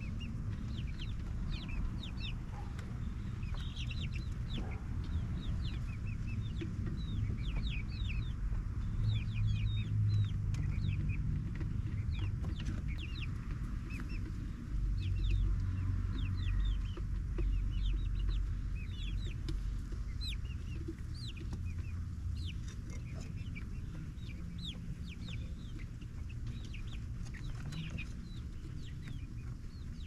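Young pullets, about eight weeks old, clucking and peeping in many short, high calls in quick succession, over a steady low rumble.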